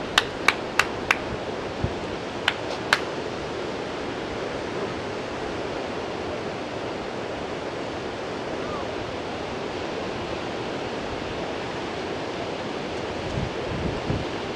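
Steady rushing of wind and sea surf on the seafront. A few sharp hand claps come in quick succession in the first second, and two more about two and a half to three seconds in.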